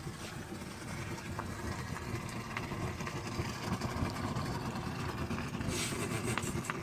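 Steady low roar of a homemade propane-fired foundry furnace burner running.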